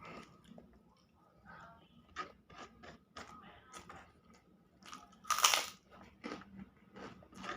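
Close-miked eating of spicy balado eggs: chewing and wet mouth sounds in short clicks and smacks, with one loud hissing burst about five seconds in.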